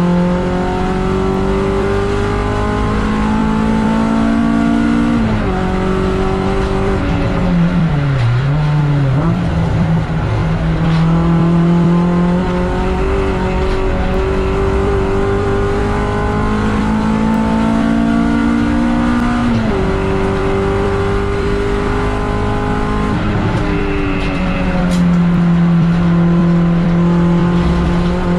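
MG ZR race car's four-cylinder engine at racing revs, rising steadily in pitch as it accelerates. Sudden drops in pitch mark upshifts about five, twenty and twenty-three seconds in, and around eight seconds the engine note dips and climbs again as the driver lifts off, brakes and changes down.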